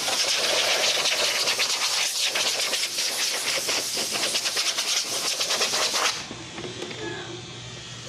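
Pressurised air hissing out in one long, unsteady blast of about six seconds, then cutting off suddenly.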